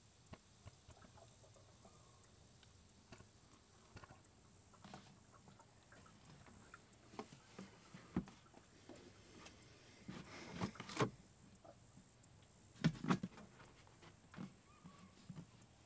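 Motor oil pouring from a plastic jug into a plastic funnel in an engine's oil fill: faint pattering and glugging, with a few louder plastic knocks and gurgles about two-thirds of the way through and again later as the jug is tipped up and rested in the funnel.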